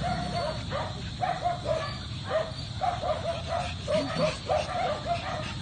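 Small dogs yipping, a string of short high yips about two or three a second.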